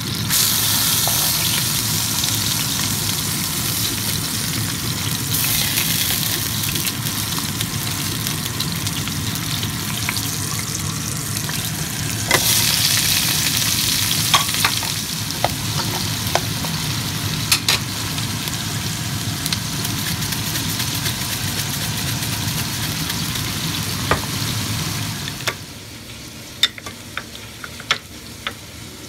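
Hamburger steak patties sizzling steadily in a frying pan alongside sliced onions and red peppers, with a few sharp clicks scattered through. Near the end the sizzling cuts off, leaving a few light clicks and taps.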